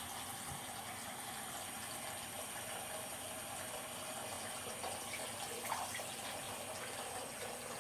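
Hot water running steadily from a sink tap, filling the sink.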